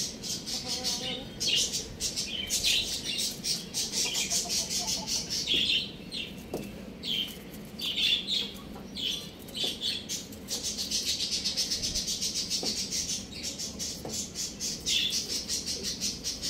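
A group of young chickens peeping and chirping rapidly, many calls overlapping without pause.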